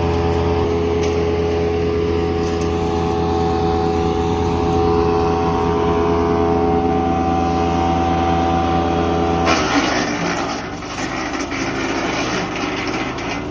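Petrol wood chipper's engine running steadily. About nine and a half seconds in, the engine note drops and a rough, noisy chipping sound takes over, as material is fed into the chipper.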